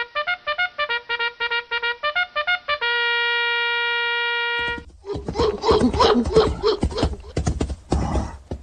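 Trumpet fanfare of quick repeated notes ending on one long held note, followed about five seconds in by a louder, noisier jumble of thumps and cries.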